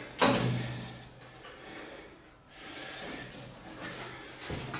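A single sharp knock about a quarter second in, dying away over about a second, then quieter shuffling and footsteps on a carpeted floor.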